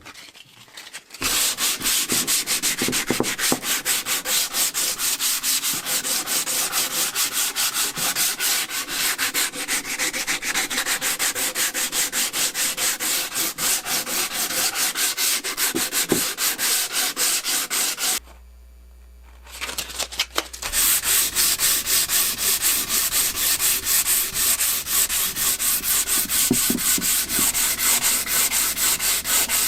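Hand sanding with sandpaper in quick, even back-and-forth strokes, stopping for a couple of seconds a little past the middle and then starting again.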